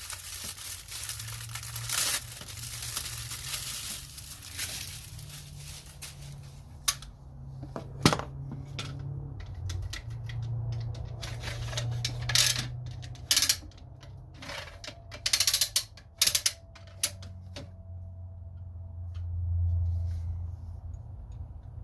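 Packaging rustling and crinkling for several seconds, then scattered sharp clicks and knocks as a tool is handled.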